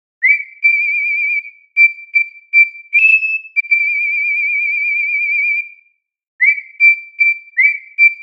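Whistled melody, starting a moment in: a held note with vibrato, a run of short notes, a long wavering note, a short pause, then short notes that each scoop up into pitch.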